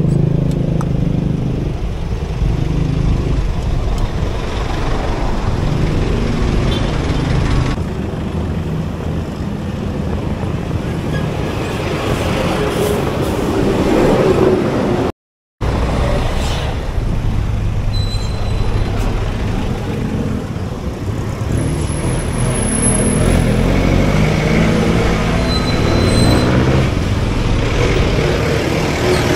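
Dense city traffic heard up close among cars, motorcycles and jeepneys, with engines running and idling nearby. About halfway through there is a brief dropout.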